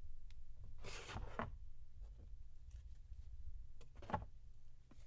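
Trading cards being handled and slid together in a stack: two brief rustles, about a second in and about four seconds in, over a low steady hum.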